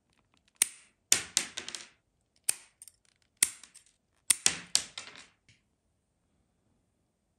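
Metal scissors snipping, about six sharp clicks, some trailed by a short rattle, then stopping about five and a half seconds in.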